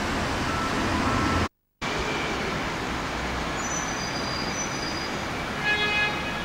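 Steady traffic noise of a busy bus station, with diesel buses running. The sound cuts out briefly about a second and a half in, and a short pitched squeal rises above it near the end.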